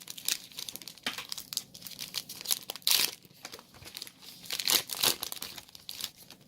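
Foil Yu-Gi-Oh booster pack wrapper crinkling as it is handled and torn open, with louder crackles about three seconds and five seconds in.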